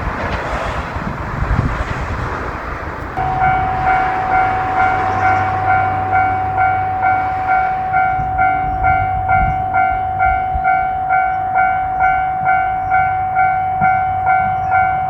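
A train running past with a rumble, then about three seconds in a Japanese level crossing's electronic warning bell starts suddenly. It rings steadily with even, ringing "kan-kan" strikes a little under two a second.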